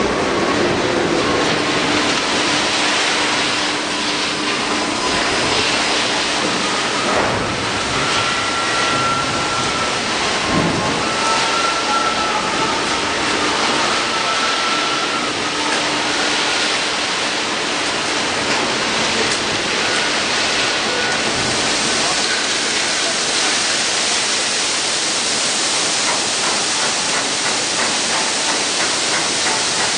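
Rotary wagon tippler turning a loaded iron ore wagon over, with a steady, loud rushing noise of ore pouring out of the tipped wagon; the noise gets brighter in the last third, and a few faint high tones come and go.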